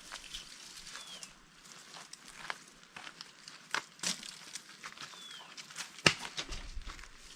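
Irregular rustles, crinkles and clicks of camping gear being handled while a tent is pitched, with one sharper knock about six seconds in.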